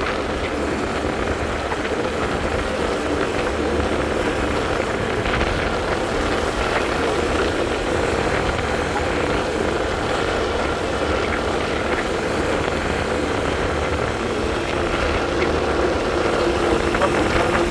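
Honda motor scooter's engine running steadily at a low cruising speed, with the rush of riding on the microphone.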